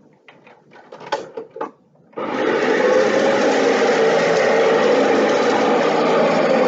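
A few handling clicks and knocks, then a Dyson DC65 Animal upright vacuum cleaner switched on about two seconds in, its motor running loud and steady with a whooshing rush of air and a hum.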